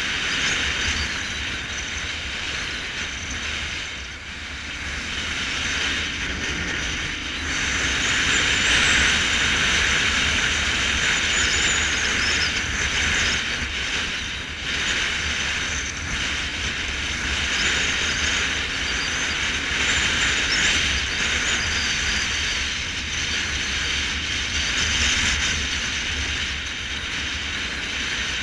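Motorcycle riding along a paved road: steady rushing wind and road noise, with the engine faintly underneath, growing louder about a quarter of the way in.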